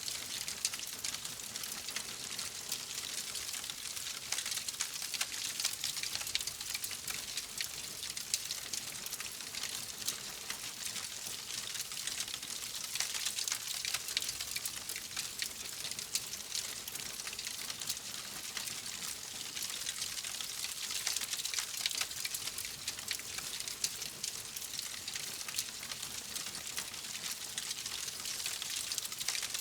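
Wood fire burning in a fireplace, crackling steadily: a dense run of small pops and ticks over a soft hiss, with no letup.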